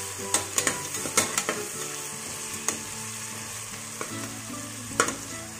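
Sliced onions sizzling in hot oil in an aluminium pressure cooker, being fried toward brown. A metal slotted spatula stirs them, clicking and scraping against the pot several times in the first second and a half, then a few single knocks, the sharpest near the end.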